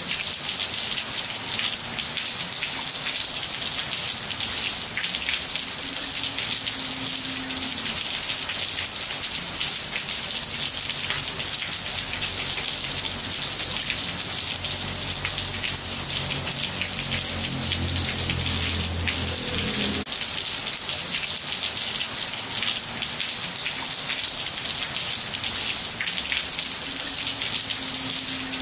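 Steady rain falling on roof tiles: a dense, even patter of many drops.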